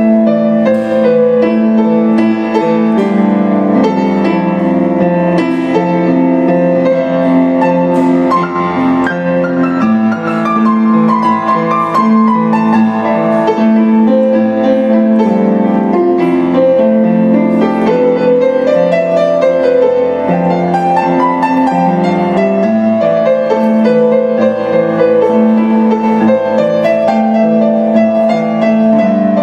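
Kawai grand piano played solo: held bass notes and chords under a melody that moves up and down, with the sustain ringing on.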